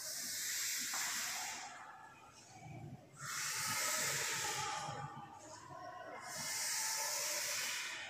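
Chalk scraping across a blackboard as long straight lines are drawn: three long scraping strokes, each lasting a second or two, with short pauses between.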